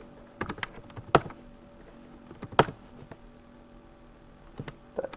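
Computer keyboard being typed on in short bursts: a few sharp key clicks, with a louder keystroke just over a second in and another a little past halfway, then more near the end.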